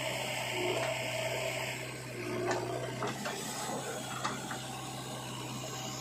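JCB 3DX backhoe loader's diesel engine running steadily as it works. Scattered clicks and knocks come from about two seconds in, from the bucket clanking and earth dropping.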